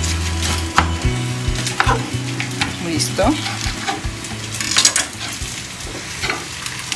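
A kitchen knife cutting through a pineapple's rind and flesh, a handful of crisp, irregular crunching strokes. Background music runs underneath.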